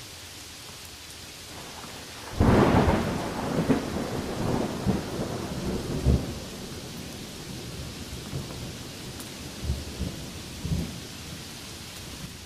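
Steady rain hiss, then thunder breaks suddenly about two seconds in and rolls on in rumbles for a few seconds, with fainter rumbles near the end.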